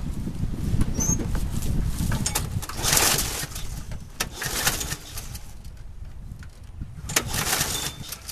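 Footsteps crunching through dry fallen leaves: three short rustling bursts, about three, four and a half, and seven seconds in, over a low uneven rumble.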